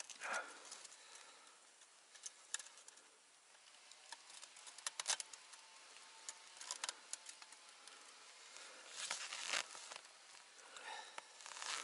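Faint scattered clicks and rustles of a steel KP-320 body-grip beaver trap being handled and set in the snow, with a cluster of light metallic clicks about five seconds in and a longer rustle of snow and clothing near the nine-second mark.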